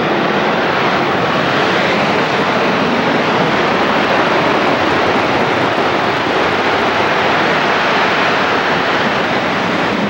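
Continuous loud roar of the World Trade Center's North Tower collapsing, a steady rumbling noise with no distinct bangs.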